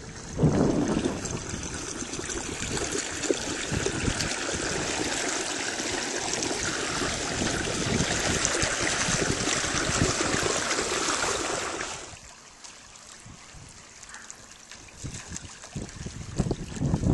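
Water rushing and splashing along the hull of a moving canoe, with wind noise on the microphone. About twelve seconds in it drops suddenly to a quieter wash of water, which grows louder again near the end.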